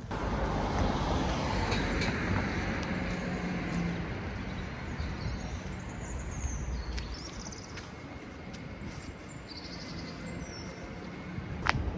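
A road vehicle passing, loudest over the first few seconds and then fading away.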